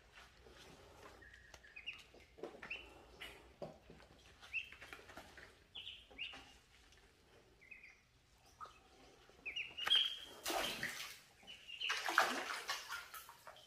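Ducklings peeping in scattered short, high chirps. About ten seconds in, and again near the end, louder splashing of water in the shallow pool stands out over the peeps.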